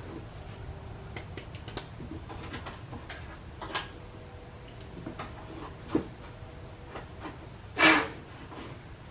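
Scattered light clicks, taps and knocks of hand tools and metal parts as corroded quick-release bumper fasteners are worked loose, with one louder brief sound near the end.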